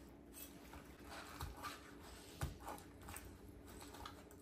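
Faint sounds of a cleaver and gloved hands skinning raw chicken thighs on a bamboo cutting board: soft handling noises with a few light knocks, the loudest about halfway through.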